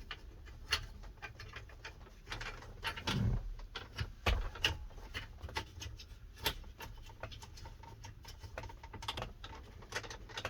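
Irregular small clicks and taps of a plastic car phone mount being handled and adjusted, with a few louder knocks about three to four and a half seconds in.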